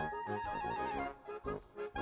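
Instrumental outro music with a rhythmic bass line and a lead melody that trills rapidly between two close notes.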